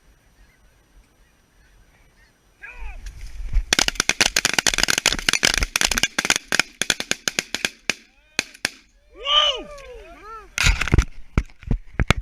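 Snow geese calling, then from about four seconds in a rapid, overlapping volley of shotgun fire from several hunters over the geese's calls for about four seconds. A few more single shots come near the end, with geese still calling between them.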